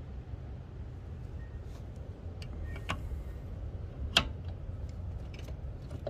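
A 14 mm open-end wrench clinking on a metal brake line fitting at the master cylinder, giving a scattering of light metallic clicks. One sharper click comes about four seconds in. A steady low rumble runs underneath.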